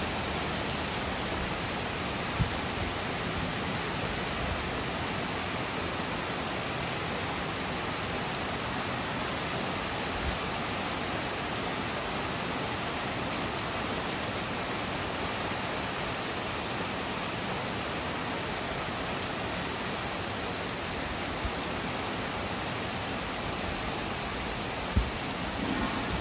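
Heavy rain pouring steadily onto trees and a street, an even hiss, with a couple of brief low thumps, one a few seconds in and one near the end.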